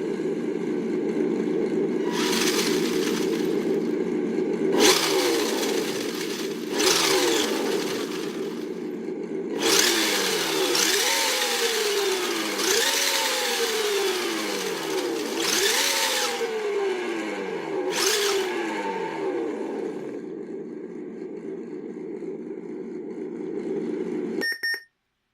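Simulated engine sound from a G.T.Power RC engine sound module, idling steadily and then revved repeatedly, about one rev every second and a half. Near the end a short electronic beep sounds and the engine sound cuts off.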